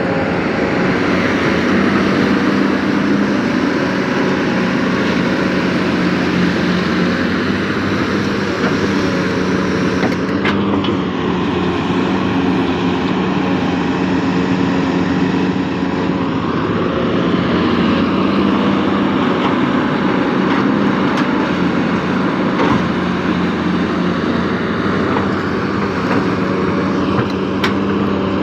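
Excavator's diesel engine running steadily and loudly, a constant drone with no letting up.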